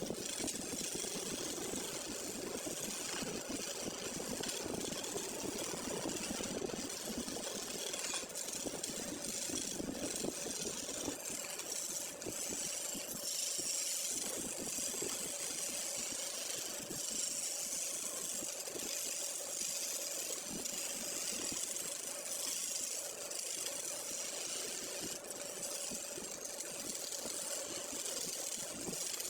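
Woodworking power machine running steadily while it shapes a piece of wood, with a continuous hum and a bright cutting hiss.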